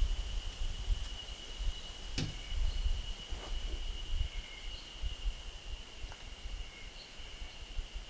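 Forest ambience: a steady high insect drone with a few short bird chirps, low wind rumble on the microphone, and one sharp knock about two seconds in.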